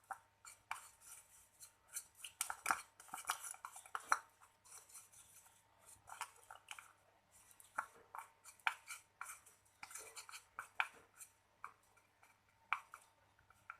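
A utensil scraping and clinking against a small container as a thick mixture of talcum powder and oils is stirred, in irregular short clicks and scrapes.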